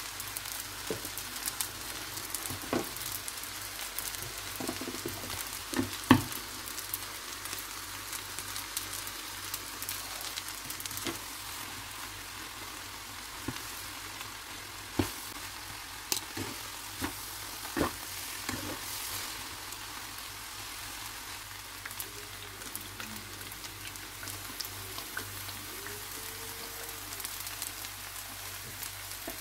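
Shredded vegetables and glass noodles sizzling in butter in a frying pan as they are stirred and tossed, a steady hiss broken by scattered clicks and knocks of the utensils against the pan, the loudest about six seconds in.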